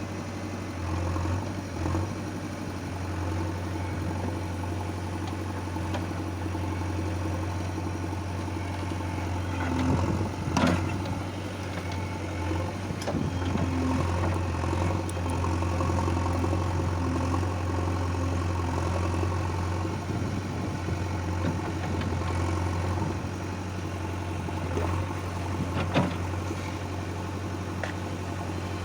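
Heavy diesel machinery engine running steadily near idle, with a few sharp clanks around ten seconds in, again around thirteen seconds, and near the end.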